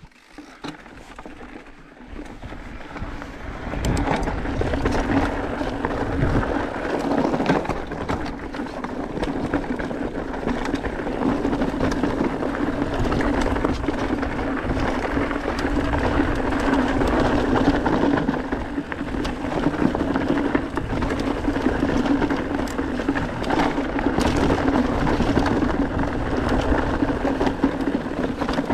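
Enduro mountain bike riding over a rocky dirt trail: tyres on loose stones and dirt, with the bike rattling and clattering over bumps. It rises to a steady loud level about four seconds in as the bike gets up to speed.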